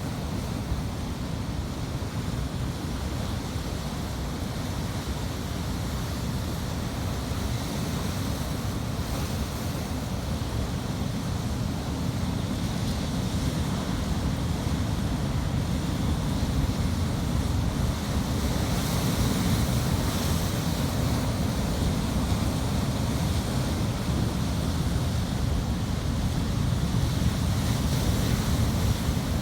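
Ocean surf: waves washing in a continuous deep rush, growing slightly louder over the second half.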